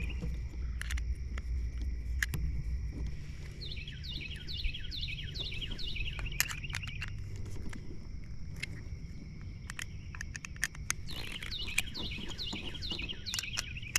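A bird chirping in quick runs of short, falling notes, about two or three a second, once a few seconds in and again near the end. Scattered small clicks and taps from hand work sound under it, with a low background hum.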